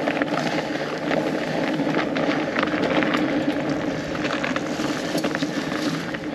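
Fat bike on studded tires rolling fast downhill over a frozen trail: a steady tire hum with frequent clicks and rattles over bumps.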